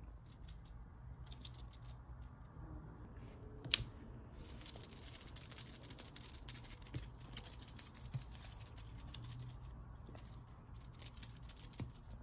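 Kittens' claws scratching and rustling on a crocheted yarn basket as they clamber about: short scratchy bursts, with a long dense stretch in the middle and a single sharp click about four seconds in.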